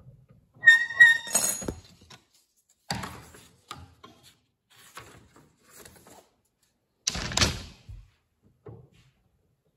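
Wood strips and tools being handled on a table saw that is not running: a sharp knock with a brief ringing clank about a second in, a few lighter knocks, and a louder, longer clatter about seven seconds in.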